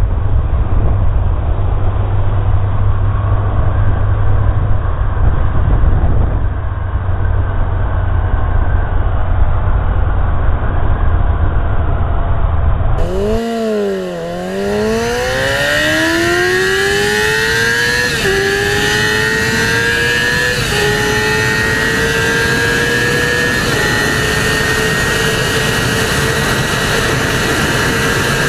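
Sportbike engine heard from an onboard camera. First comes a dull, deep rumble of riding at speed. About halfway through the engine note dips and then climbs hard through the gears, with an upshift drop in pitch three times, every two to three seconds.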